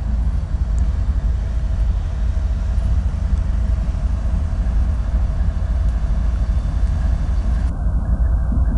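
Canadian Pacific GE ES44AC diesel-electric locomotives pulling a mixed freight past at close range, a deep, steady engine rumble.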